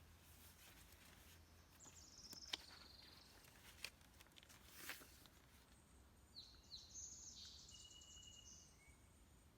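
Quiet outdoor ambience with faint small-bird chirps, once about two seconds in and again in a longer run near seven seconds, and a few soft clicks in between.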